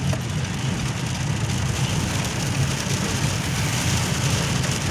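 Heavy rain on a moving car, heard from inside the cabin: a steady hiss of rain and wet tyres over a constant low engine and road hum.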